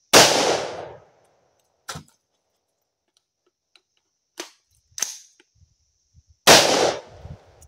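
An AR-15 rifle in .223 fires one shot, then short metallic clicks and clacks from the magazine reload, then a second shot near the end. Each shot cracks sharply and rings out for about a second.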